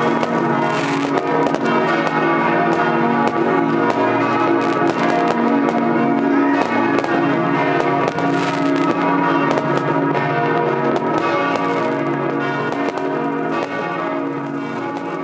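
Church bells pealing steadily under a continuous crackle of fireworks, with many sharp cracks and bangs.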